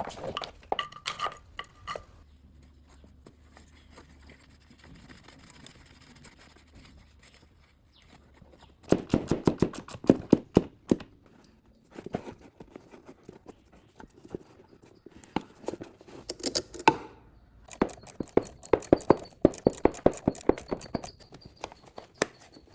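Several runs of rapid, light clicking and clinking from hand work on the scooter's throttle cable fittings. Each run lasts a second or two, and there is a quieter stretch before the first one.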